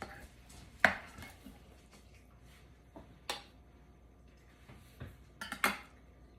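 Serving utensil cutting into a baked chicken pie and knocking against the baking dish and plate: a handful of separate sharp clicks, the loudest about a second in and a quick cluster near the end.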